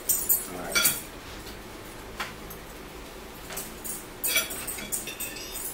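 Metal forks clinking and scraping against plates as people eat: irregular sharp clinks, bunched together a few seconds in.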